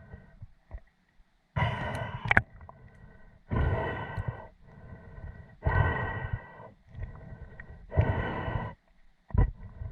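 Spearfisherman breathing hard through a snorkel, with loud rasping breaths in and out about every two seconds. A faint steady high whine runs under them.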